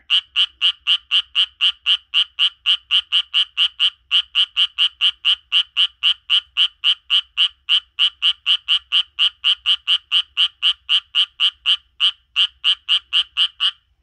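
A Japanese tree frog calling: a fast, even series of short croaks, about four a second, with a brief break about twelve seconds in.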